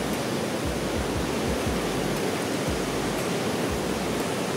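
Fast-flowing mountain river rushing steadily, an even roar of white water, with a few short low bumps underneath.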